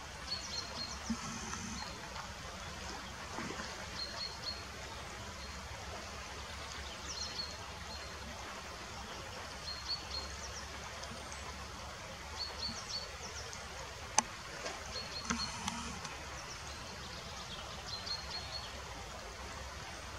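Fast-flowing river water rushing over shallow riffles, a steady wash. Short high chirping calls come every couple of seconds, and a single sharp click sounds about fourteen seconds in.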